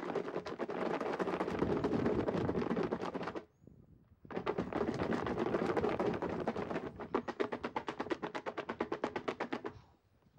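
Raw cut fries being shaken with seasoning in a lidded plastic tub. The strips rattle and knock against the plastic walls in fast strokes. There is a short break about three and a half seconds in, then a steadier shaking rhythm of about five or six strokes a second.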